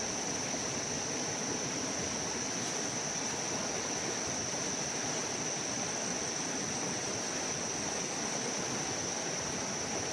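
Fast, muddy river swollen after rain, rushing steadily past the bank. A steady high-pitched tone runs over it without a break.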